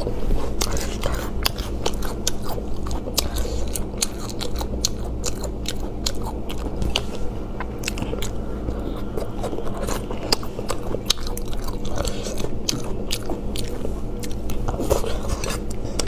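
Close-miked chewing and crunching of spicy braised chicken and duck offal (feet, gizzards, gristle), with many sharp, irregular clicks throughout.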